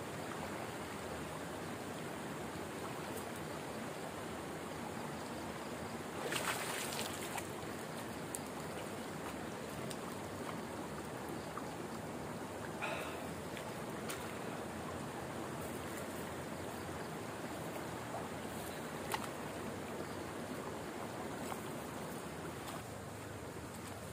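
Steady rush of flowing water, with a brief louder splash about six seconds in and a few small knocks and ticks later.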